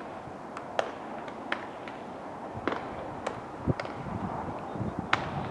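Baseballs popping into leather gloves during a warm-up game of catch: about eight sharp smacks at irregular intervals over a steady outdoor noise bed.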